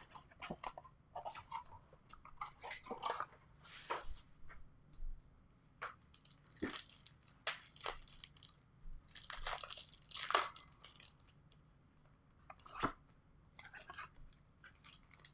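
Packs of 2021 Bowman Chrome HTA baseball cards being torn open and the cards handled: wrappers tearing and crinkling in irregular short rustles and snaps, with the longest rip about ten seconds in.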